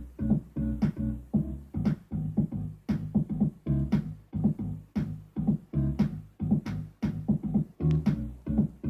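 Electronic music with a steady drum-machine beat, about two beats a second, over a heavy bass line.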